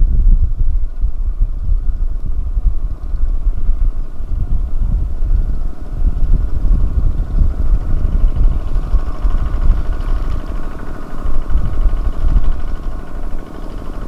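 Engine of a small tractor running, with a heavy, uneven low rumble and a steady whine that grows stronger about eight seconds in.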